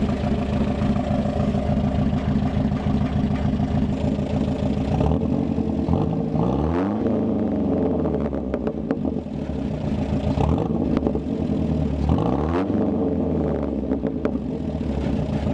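A 1996 Dodge Dakota's four-cylinder engine running steadily, heard at the exhaust, revved up twice: about six seconds in and again about twelve seconds in, each time rising and then falling back to idle.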